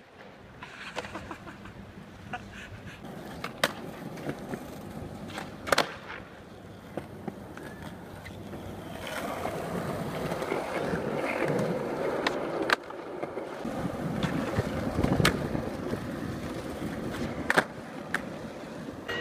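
Skateboard wheels rolling over smooth concrete, with several sharp wooden clacks of the board popping and landing during flatground tricks. The rolling grows louder in the second half.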